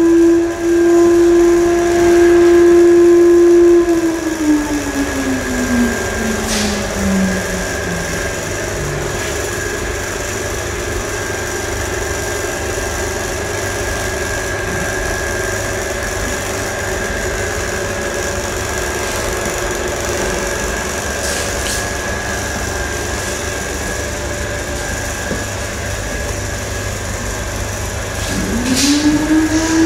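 An electric motor whines steadily, then winds down, its pitch falling over about five seconds, while a steady machine hum and hiss carry on. Near the end the motor spins back up to its steady whine.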